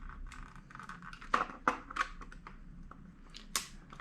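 Small clicks and scrapes of old hot glue being pushed and picked loose inside a plastic RC transmitter case, with a few sharper clicks among them. The glue has not adhered and flakes off.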